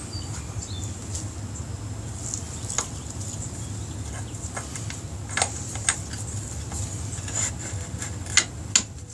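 A few scattered light clicks and taps of metal parts being handled while a motorcycle rear wheel is lined up for its axle, over a steady low hum.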